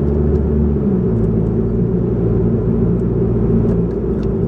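A car's engine and road noise heard from inside the cabin while driving, a steady low drone. The engine note shifts about a second in and again near the end.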